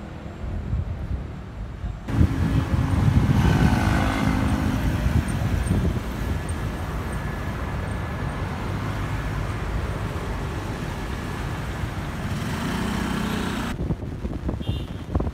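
City street traffic: cars and a motorcycle passing on the road, with a steady low rumble. The sound jumps abruptly louder about two seconds in and drops again near the end, where shots are cut together.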